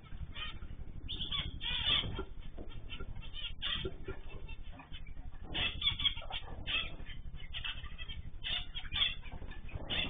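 Mixed aviary birds (canaries, goldfinches and zebra finches) chirping and calling, with many short calls overlapping irregularly over a steady low background noise. The sound is dulled and narrow, as picked up by a surveillance camera's microphone.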